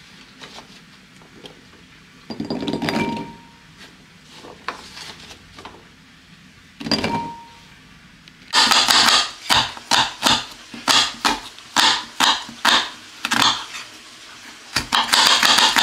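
Chopped gourd pieces dropped into a cut-glass bowl twice, each time a short clatter with the glass ringing briefly. Then a knife chopping on a wooden board in quick regular strokes, about two a second, with a brief pause near the end.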